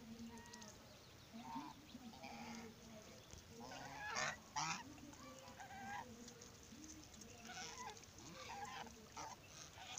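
Brown Chinese geese honking in a loose run of calls, with two loud honks close together about four seconds in.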